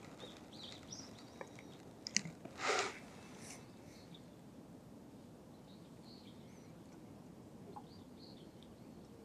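Quiet outdoor ambience with faint, scattered bird chirps. A sharp click comes a little after two seconds in, followed by a short burst of noise.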